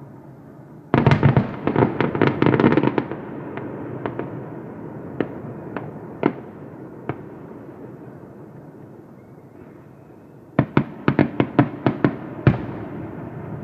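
Aerial fireworks shells bursting: a rapid string of sharp bangs and cracks starts suddenly about a second in and lasts about two seconds, then single cracks come every second or so, and a second rapid string of cracks comes near the end, closing with a louder bang.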